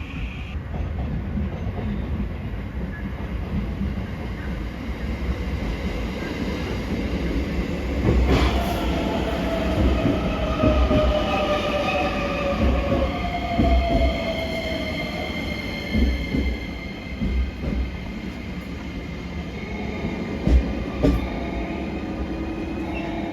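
Electric train running through a station: a steady rumble, with a whine that slides down in pitch as it slows, and several wheel knocks over rail joints near the end.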